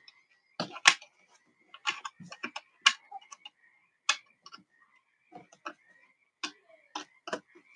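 Irregular sharp plastic clicks and snaps from the bottom cover of an Asus TUF Gaming F15 laptop being worked loose from its plastic clips by hand, about fifteen clicks at uneven spacing.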